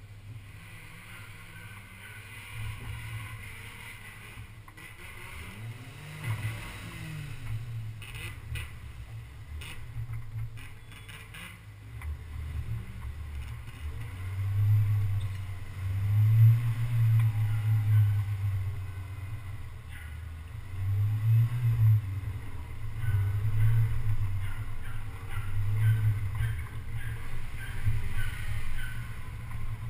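Low rumble of a 4x4 driving slowly over a dirt trail, as picked up by a camera mounted on its hood. The rumble swells louder and falls away in surges through the second half, with a few knocks and rattles.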